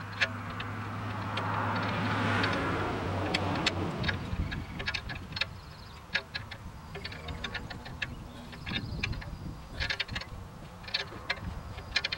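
Light, irregular metallic clicks and ticks, some in quick clusters, of hand tools and bolts being worked on the front of a small-block V8 as its water pump and brackets are fitted. A low steady hum underneath fades out about four seconds in.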